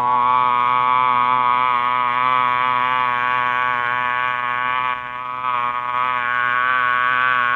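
A person's voice holding one steady, nasal, buzzing drone on a single pitch with a slight waver. It dips briefly about five seconds in.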